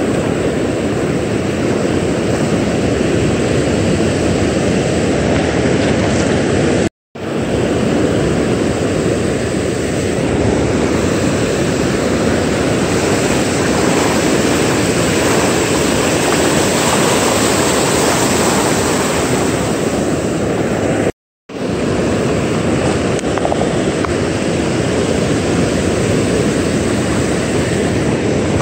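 Steady, loud rushing of ocean surf breaking on the beach, mixed with wind noise on the microphone. The sound cuts out completely for a split second twice, about seven seconds in and again about twenty-one seconds in.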